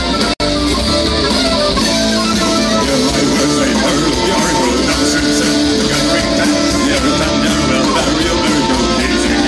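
A live rock band with fiddle, electric guitar and drums playing loudly on stage, heard from the audience. The sound drops out for an instant just under half a second in.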